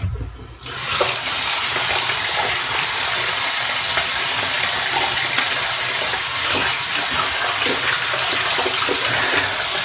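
Bathroom sink tap turned on about a second in and running steadily, with small splashes in the stream.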